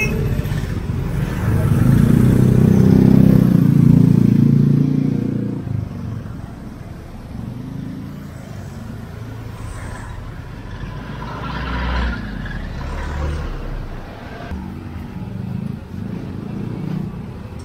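Street traffic, mostly motorcycles and motorcycle tricycles passing close. The loudest engine goes by between about two and five seconds in, then lighter traffic follows, with another vehicle passing around twelve seconds in.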